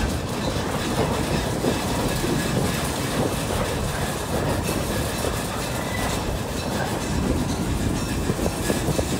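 Narrow-gauge heritage train rolling along, heard from inside an open-sided passenger car: a steady rumble of wheels on rail, with frequent small clicks and knocks from the track.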